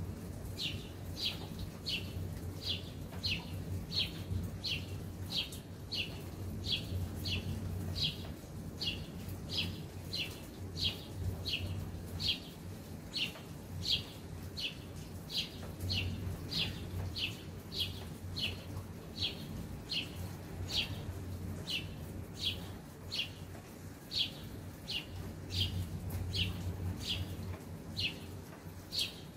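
A single bird chirping over and over, one short falling chirp about twice a second in a steady, unbroken rhythm, over a low steady outdoor rumble.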